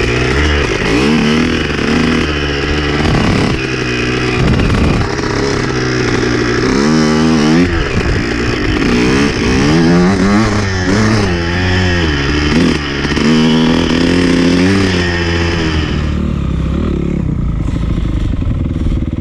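A Honda motocross bike's engine revving up and down under throttle as it is ridden along a dirt trail and across grass, its pitch rising and falling with each burst of throttle. Near the end it settles to a lower, steadier note.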